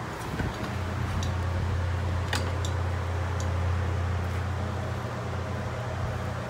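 Steady low mechanical hum from a running machine, with a few sharp metallic clicks, the clearest about two seconds in.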